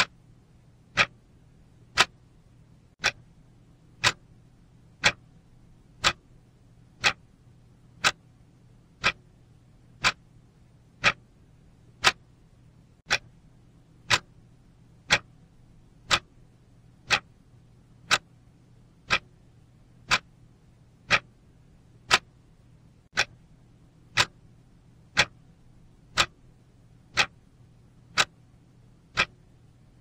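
Clock ticking steadily, one sharp tick a second.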